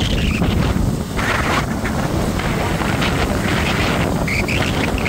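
Road noise of a moving vehicle, with wind buffeting the microphone.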